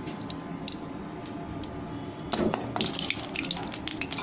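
Ghee sizzling in a hot iron kadhai, a steady hiss with scattered sharp crackles. A brief knock comes about two seconds in, after which the crackling grows busier.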